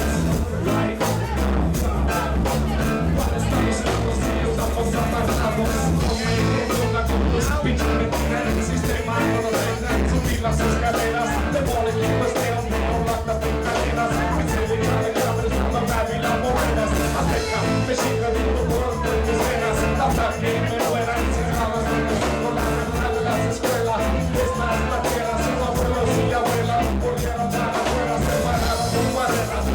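Live reggae band playing, with drums keeping a steady beat over heavy bass.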